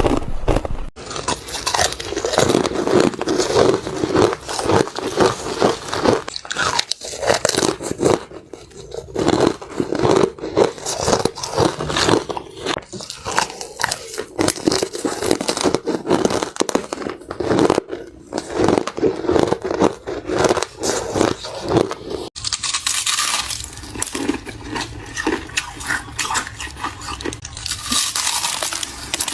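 Close-miked biting and chewing of crunchy chip ice: dense, rapid crunching. About two-thirds through there is an abrupt cut, after which the crunching is thinner and hissier.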